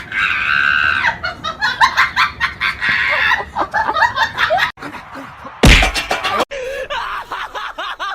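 A shrill held scream, then bursts of people laughing; a loud thump cuts in about six seconds in, followed by more laughing voices.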